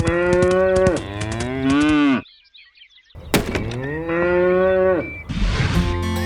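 Cattle mooing: two long moos, the first cut off abruptly about two seconds in, the second starting about a second later. Music comes in near the end.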